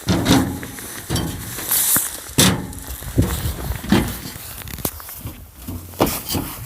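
Irregular knocks and footsteps, roughly one a second, over a low rumble.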